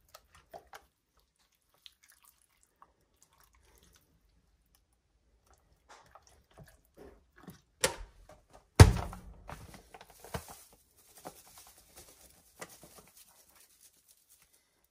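Kitchen handling sounds: faint drips and small clicks as the battered chicken is lifted from the bowl, then a sharp knock about eight seconds in and a loud thump a second later, followed by a couple of seconds of paper-bag crinkling as the bag of dry batter mix is handled, and a few small taps as it is poured into the dish.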